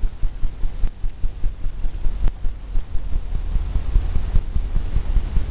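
Brush strokes on a stretched canvas during wet-on-wet oil painting: a run of low, dull thuds, about three a second at first, then quicker and denser.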